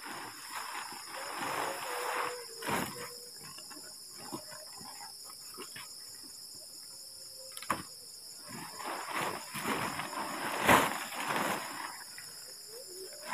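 Nylon tent fabric rustling and crumpling as a tent is unpacked and spread out, in surges, with a couple of sharp clicks from its parts. Crickets chirr steadily under it.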